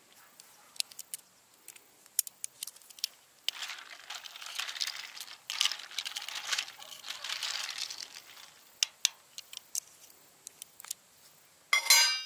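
Light clicks and crinkling of something handled, rustling for a few seconds in the middle, then a loud short clink that rings briefly near the end.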